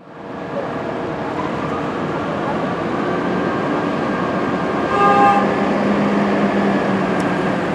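Steady rumble of a diesel fire engine idling in its station bay against street traffic, with a short horn toot about five seconds in.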